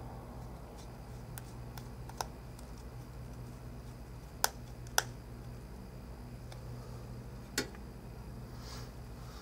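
Scattered small clicks and taps of a precision screwdriver and tiny screws while an iPhone 4 logic board is fastened into its frame, two sharper clicks about halfway through, over a steady low electrical hum.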